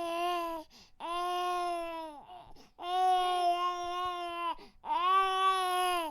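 Baby crying: four long wails, each held at a steady pitch, with short pauses for breath between them.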